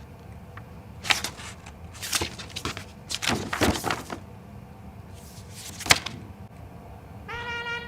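A handful of short knocks and thumps at irregular moments, then a pitched musical note begins just before the end.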